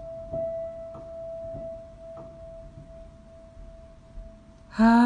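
Opening of a slow song: a single sustained musical note held steady, with faint soft thumps about every two-thirds of a second. A hummed vocal line comes in just before the end.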